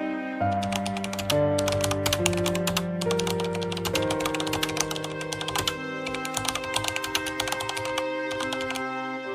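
Rapid typing clicks, a typing sound effect that starts about half a second in and stops near the end, over slow background music with held notes.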